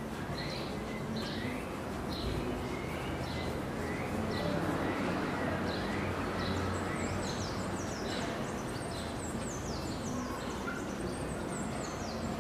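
Birds calling: many short, falling chirps repeated about twice a second, growing denser and higher-pitched in the second half, over a steady outdoor background hiss.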